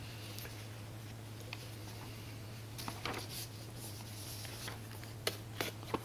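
Quiet meeting-room tone with a steady low electrical hum, a soft rustle about halfway through, and three small sharp clicks near the end.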